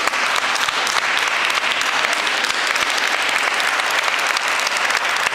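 Audience applauding, a steady, dense patter of many hands clapping.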